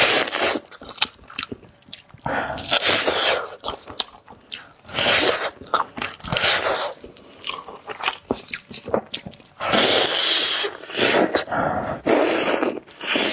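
Close-miked chewing and biting of braised pork knuckle, in bursts of a second or two with short pauses between.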